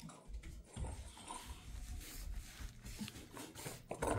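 Jindo dog moving about and sniffing close to the microphone, with soft irregular scuffs and clicks and a low rumble of handling noise; a louder noisy burst comes near the end.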